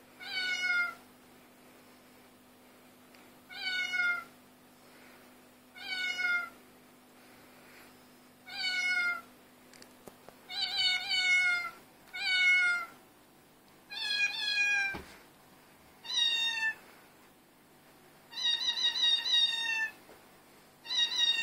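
Domestic cat meowing over and over, about eleven falling meows under a second long each, coming roughly every two seconds; the later meows are higher-pitched and a couple come in quick succession.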